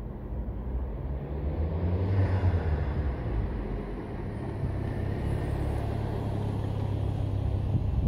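Ford Focus ST225's turbocharged 2.5-litre five-cylinder engine running as the car drives slowly up and pulls alongside. The engine note swells about two seconds in, then holds steady and cuts off suddenly near the end.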